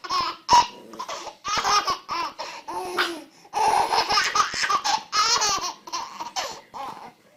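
A baby laughing hard, in several bursts of squealing belly laughs with short breaths between.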